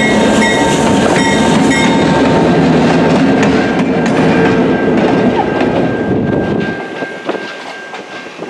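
EMD GP16 diesel locomotive rolling over a grade crossing and moving away, engine and wheels rumbling until the sound falls away about seven seconds in. A Safetran electronic crossing bell rings throughout.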